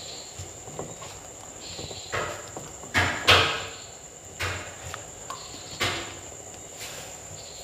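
Hands handling raw chicken pieces in a bowl and pan while coating them in egg wash and flour: a few short, soft knocks and rustles, the loudest about three seconds in.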